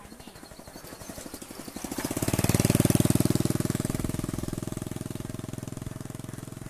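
Motorcycle engine passing close by: a rapid, pulsing engine note that grows louder over the first couple of seconds, is loudest about three seconds in, then fades as the bike rides away.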